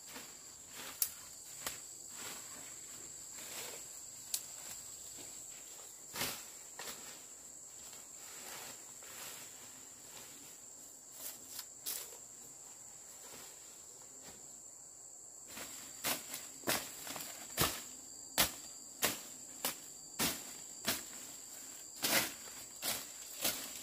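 Steady high-pitched chirring of insects, with scattered sharp knocks that fall into a regular pace of about one and a half per second about two-thirds of the way in.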